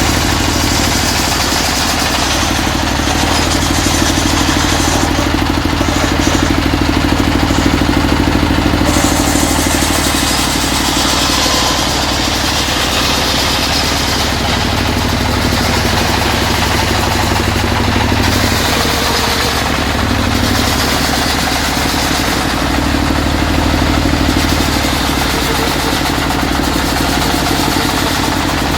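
Circular saw ripping lengthwise through a mahogany log: the saw's motor runs steadily under load, with the high cutting noise swelling and easing as the blade works through the wood.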